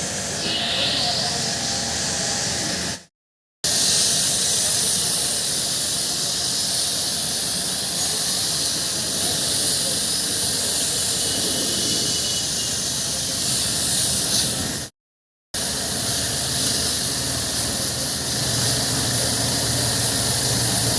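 Steady loud hiss of a high-pressure spray, broken twice by short cuts to silence.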